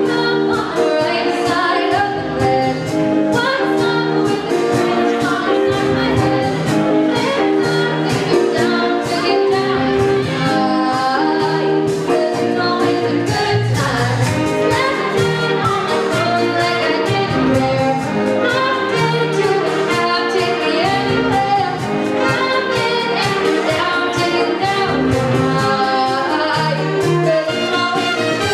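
Live jazz big band playing dance music, horns and saxophones over a steady drum beat, with a singer carrying the tune.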